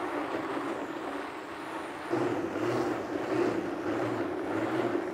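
Pedal-powered Fender Blender Pro running: the spinning bicycle tyre drives the roller that turns the blender blades, blending a smoothie with a steady whir. A lower hum swells and eases in a regular rhythm, and the whole sound grows louder about two seconds in.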